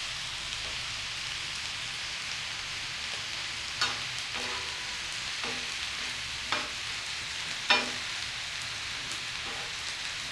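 Diced liver, tomato and spices sizzling in mustard oil on a flat tawa griddle, a steady frying hiss. A metal spatula stirs the mix and clacks against the pan about five times in the second half, the sharpest knock about three-quarters of the way through.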